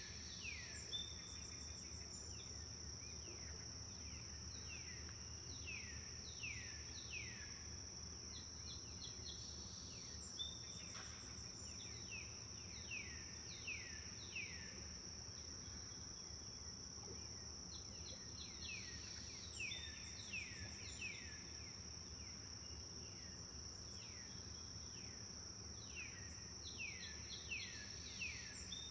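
Forest bird song: phrases of quick, repeated downslurred chirps that come in bursts every few seconds. Under them runs a steady high-pitched insect drone, like crickets, over a low constant background rumble.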